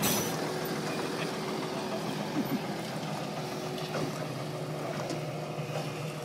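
Small narrow-gauge diesel locomotive's engine running steadily at low revs, a low even hum.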